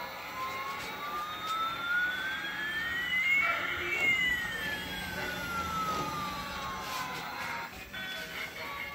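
Battery-powered toy military helicopter playing its electronic siren sound effect: a slow electronic wail, one tone rising while another falls, the two crossing about halfway through, each sweep lasting several seconds.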